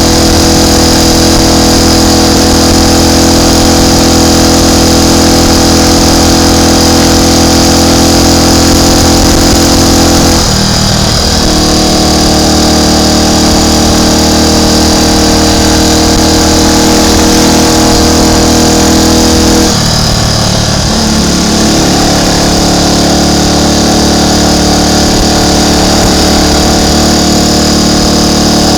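Triumph Tiger Cub's single-cylinder four-stroke engine running steadily and loud, its note stepping down twice after a brief break, about ten and about twenty seconds in.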